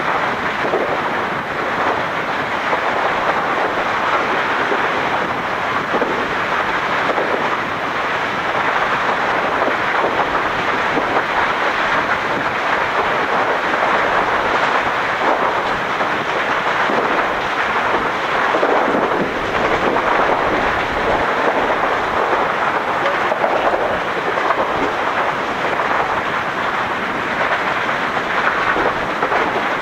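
Steady roar from an erupting volcanic crater as a thick ash plume billows up over glowing lava, an even rushing rumble with no separate blasts.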